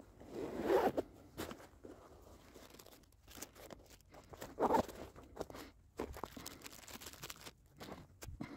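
Gloved hands handling and packing away a nylon organizer pouch with a clear window: bursts of fabric rustling and crunching, with short clicks and scrapes. A few crunching steps in snow near the end.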